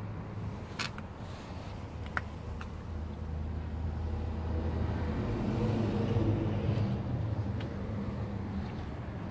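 Low steady hum of a motor vehicle's engine, swelling louder for a few seconds around the middle, with a couple of light clicks in the first seconds.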